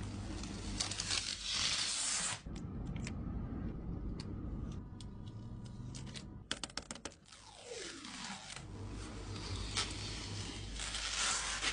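PC parts being handled during assembly: scraping and rustling of plastic and metal, with scattered clicks and a quick run of about six sharp clicks a little past halfway.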